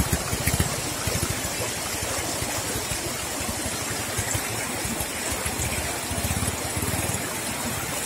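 Small motorcycle engine chugging at low revs as it picks its way off through water running over a rocky road, fading as it moves away and getting louder again for a moment about six seconds in. Water rushes across the road underneath.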